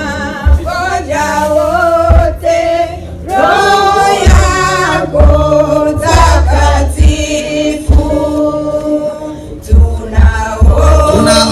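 A group of men and women singing a Swahili hymn together in unison, with deep low notes coming and going underneath.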